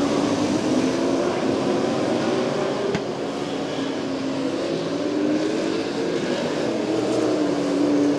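Several late model stock cars racing in a pack, their V8 engines running hard together, the pitch rising and falling as they go around the track.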